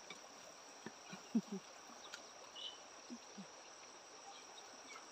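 Steady high-pitched trill of crickets, with a few faint short knocks about a second and a half in and again around three seconds in.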